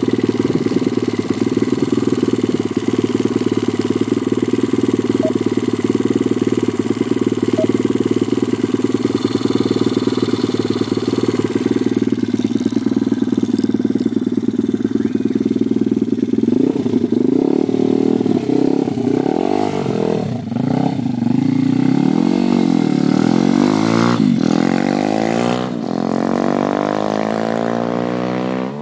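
A 125 cc pit bike engine running hard at a steady high pitch for about the first half. From about seventeen seconds the revs repeatedly rise and fall.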